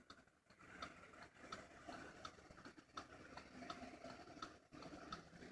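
Near silence: faint outdoor background with scattered soft ticks.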